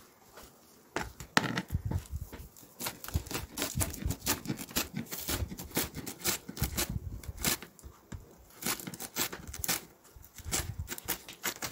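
Kitchen knife shredding cabbage on a cutting board: quick, irregular strokes, each slicing through the leaves and knocking on the board, starting about a second in.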